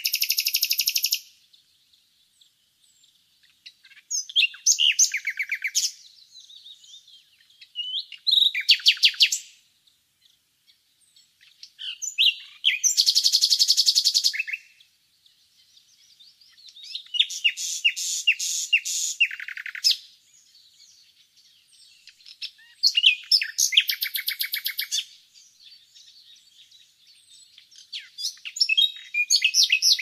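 Nightingale singing: loud phrases of rapid repeated notes and trills, each a second or two long, about seven of them separated by pauses of two to three seconds, with faint softer notes in the gaps.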